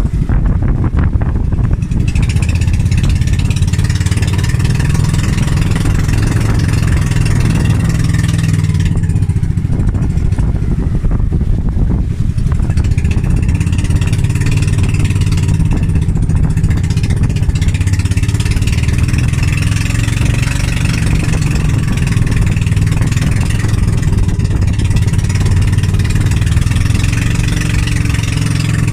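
Engine of a motorised outrigger bangka running steadily and loud while under way.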